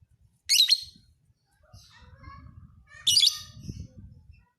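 Lovebird singing: two loud, shrill chattering bursts about two and a half seconds apart, with faint low rumbling between them.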